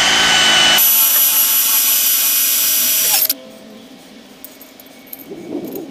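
Cordless drill boring a hole through a steel well casing: it runs steadily for about three seconds, changing tone just under a second in, then stops suddenly, followed by faint handling noises.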